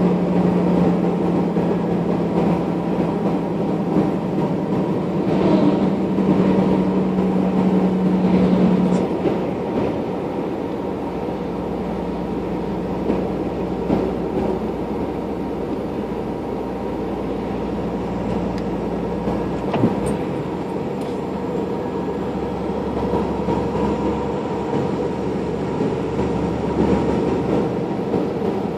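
Vehicle engine and road noise heard from inside the cab while driving, a steady drone. A strong low engine hum fades out about nine seconds in, leaving the road noise.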